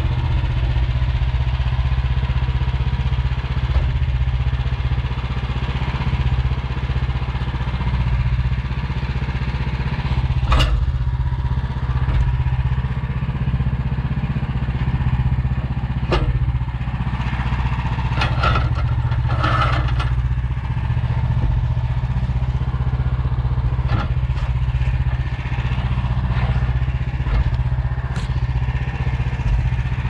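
The Woodland Mills HM130MAX portable bandsaw mill's gas engine runs steadily. Several wooden knocks and clatters come over it as sawn pine boards and cants are lifted and set down on the mill bed, a cluster of them about two-thirds of the way through.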